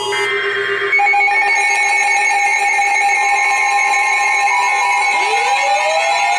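Emergency Alert System attention signal from an alert receiver: a loud, steady alarm tone that starts about a second in, announcing a new warning. About five seconds in, a second tone begins sweeping upward in pitch.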